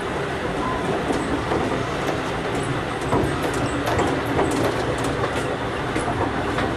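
Chiemsee-Bahn steam tram carriage running along the track: a steady rumble of wheels on rail, with scattered clicks and rattles from the carriage.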